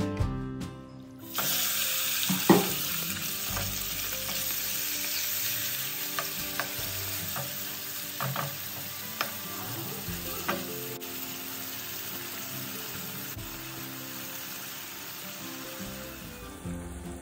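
Raw chicken pieces sizzling steadily in hot olive oil in a nonstick wok. The sizzle starts about a second in and eases off near the end. A wooden spatula knocks and scrapes against the pan several times as the pieces are stirred, loudest about two seconds in.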